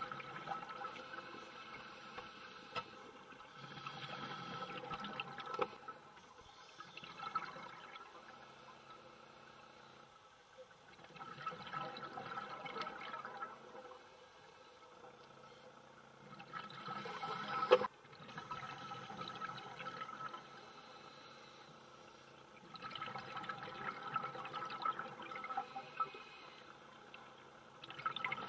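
Scuba regulator exhalation bubbles gurgling underwater, in bursts every five to seven seconds with quieter stretches between.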